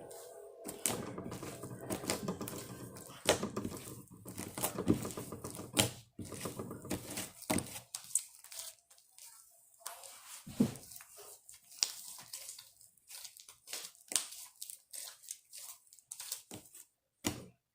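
Slime being squished and pulled by hand, giving a dense run of sticky clicks, pops and crackles that thins out to scattered clicks in the second half.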